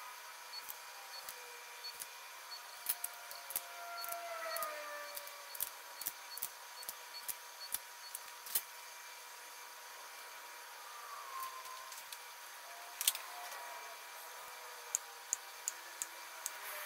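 Hand ratchet wrench clicking in short, uneven strokes as bolts are run down on an LS V8 engine block, with a quicker run of clicks near the end.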